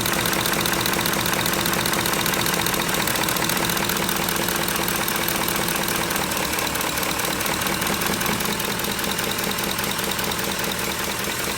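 2010 Ford F-150's V8 engine idling steadily in neutral, with a fast, even pulse; the truck has a knock that shows at low revs in gear.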